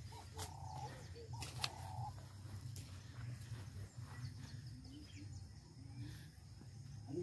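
Quiet rural outdoor ambience: a steady low hum, with a few short bird calls repeated in the first two seconds and a couple of sharp clicks.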